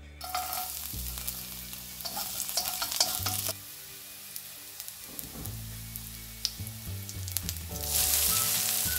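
Oil and minced garlic sizzling in a hot wok, quieter in the middle stretch. About eight seconds in, the sizzle grows louder as a heap of noodles is tipped into the wok.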